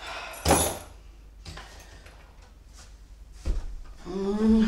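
A parcel and a phone being set down on a shelf: a knock about half a second in, quieter handling noise, and a second knock later on. Near the end a woman makes a short voiced breath with a rising pitch.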